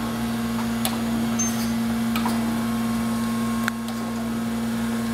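Acer AGS-1020 AHD surface grinder running under power: a steady hum from the grinding-wheel spindle and hydraulic table drive, with a few light clicks. The spindle runs quiet and sounds healthy.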